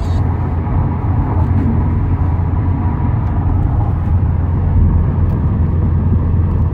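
Road and tyre noise inside the cabin of a 2018 Subaru WRX STI driving on Yokohama Advan tyres: a steady low rumble.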